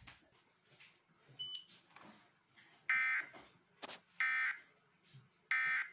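Three short bursts of Emergency Alert System digital data tones, evenly spaced about 1.3 seconds apart: the SAME end-of-message code that closes an EAS alert. A brief click falls between the first and second burst.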